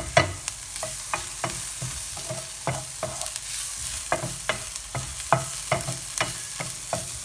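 Onions, garlic and cumin frying in olive oil, sizzling steadily, while a utensil stirs them with frequent irregular knocks and scrapes against the pan.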